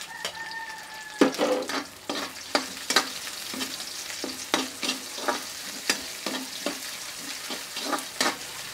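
Sliced red onions, garlic and ginger sizzling in hot oil in a metal wok, with a metal spatula scraping and knocking against the wok as it stirs: sharp, irregular clanks over a steady sizzle.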